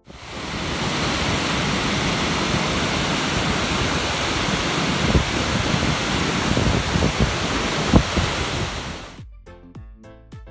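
Waterfall rushing at close range, a loud, steady roar, with gusts of wind thumping on the microphone, the strongest about 8 seconds in. The roar cuts off about 9 seconds in and background music takes over.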